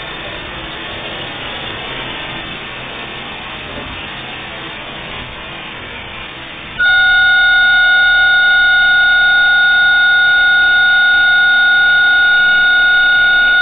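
Gang-tool CNC lathe machining with coolant running, a steady noise. About seven seconds in, a much louder, steady, high-pitched whine starts abruptly and holds.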